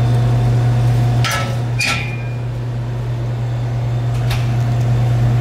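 Metal parts inside an opened vending machine knocked and clicked by hand: two sharp metallic knocks about a second and two seconds in, the second with a brief ring, and another near the end, over a steady low hum.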